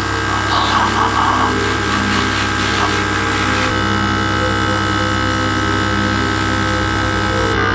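Small airbrush compressor running steadily, with a hiss of air through the airbrush in the first second or so.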